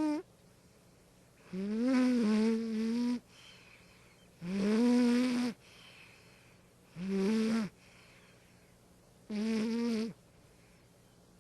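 Domestic cat snoring in its sleep: a squeaky, pitched snore with each breath, repeating about every two and a half seconds, each one sliding up at its start and then holding steady.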